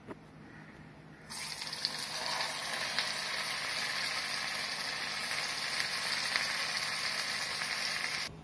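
Bread-coated potato and cheese cutlet on a stick deep-frying in hot oil in an iron kadhai on a medium-low flame: a steady sizzle that starts abruptly about a second in and cuts off near the end.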